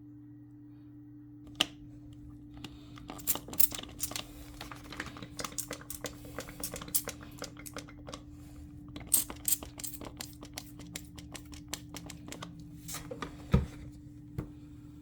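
Hands at work on a refrigerator repair: irregular sharp clicks, crinkling and scraping that start about a second and a half in and stop near the end, with a dull thump shortly before they stop, over a steady low hum.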